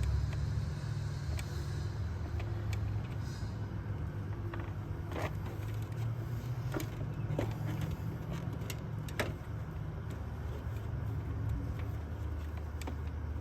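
A screwdriver prying at a window air conditioner's stuck casing, making scattered sharp clicks and taps of metal against the housing, over a steady low hum.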